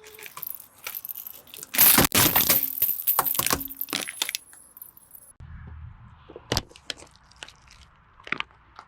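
Car tyre crushing hard, brittle objects: a loud crack about two seconds in, then a couple of seconds of crackling and snapping, later a few scattered sharp snaps over a low rumble.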